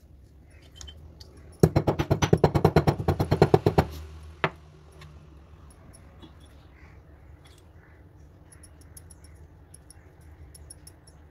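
Stone pestle pounding a cinnamon stick in a stone mortar: a rapid run of about twenty strokes, eight or nine a second, lasting about two seconds, then one more strike. Faint small clicks follow.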